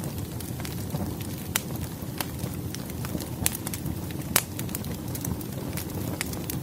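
Campfire burning: a steady low rumble of flames with irregular sharp crackles and pops, a couple of them louder.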